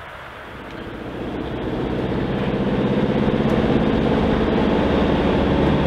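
Motorhome's diesel engine running at steady revs, growing louder over the first couple of seconds and then holding steady.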